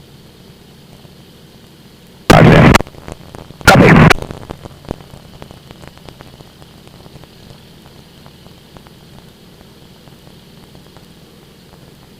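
Steady hiss of an aircraft radio and intercom, broken a little over two seconds in by two loud half-second bursts of static, followed by a few faint crackles.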